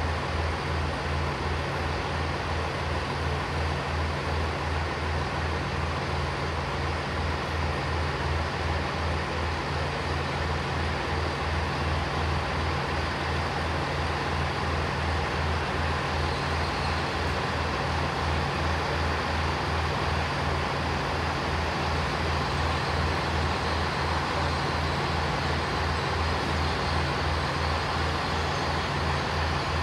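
Diesel train engine idling with a steady low throb that holds unchanged throughout.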